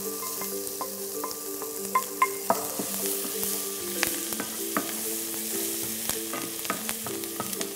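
Chopped onion and pounded lard sizzling in olive oil in a frying pan, with a spatula stirring and knocking against the pan in scattered clicks.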